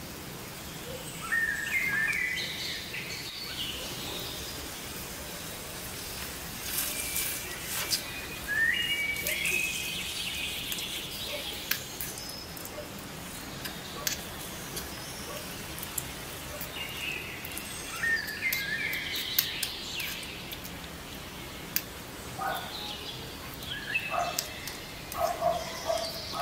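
Birds chirping in short bursts of calls every several seconds, with lower calls near the end. Light clicks and scrapes of a small metal spoon stirring egg in a tiny metal wok come in between.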